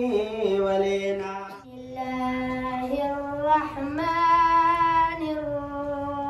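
A boy singing an Islamic devotional verse solo, without instruments, in long held notes that step up in pitch, with a short breath pause about a second and a half in.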